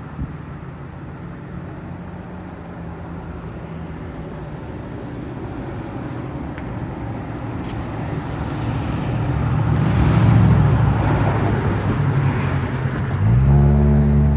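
Road traffic: a steady low engine hum, then a vehicle passing that is loudest about two-thirds of the way through. Near the end an engine accelerates with rising pitch.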